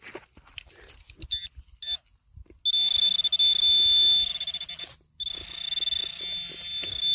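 Metal detector giving a high target tone as the coil is swept over a shallow buried target: two short beeps, then a long held tone that breaks off about five seconds in and comes back, wavering a little. The target is a corroded coin lying near the surface.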